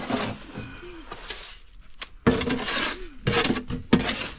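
Hard objects clinking and knocking together, a quick series of sharp strikes each with a brief ring, starting about halfway through.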